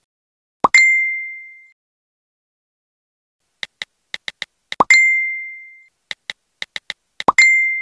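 Phone messaging sound effects: short bursts of keyboard tap clicks, and three times a quick upward swoop into a bright ding that rings out for about a second, the chime of a chat message being sent or received.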